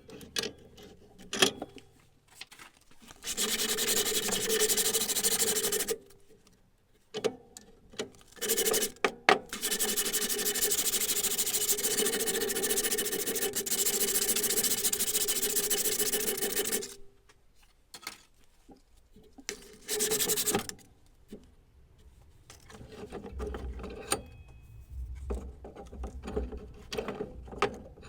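Abrasive work on steel: two long stretches of steady scraping, one about three seconds in and a longer one from about ten seconds to seventeen, with scattered clicks and knocks between them as the piece is handled.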